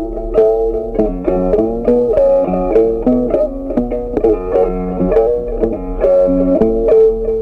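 Background instrumental music led by a plucked string instrument, playing a steady run of quick picked notes.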